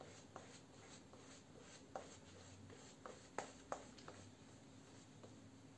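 Faint scrubbing of a synthetic shaving brush working lather over stubble on the face, with a few small sharp ticks, the loudest two about three and a half seconds in.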